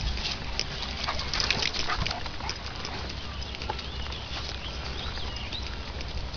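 A dog snuffling and sniffing close by, in a run of short, scratchy noises, with a few small bird chirps about halfway through.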